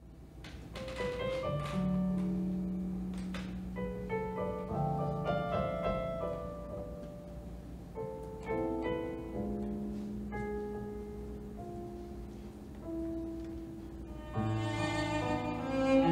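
Slow jazz-ballad introduction on accordion and piano: long held low notes under a sparse melody. About fourteen seconds in, a bowed cello enters and the music swells.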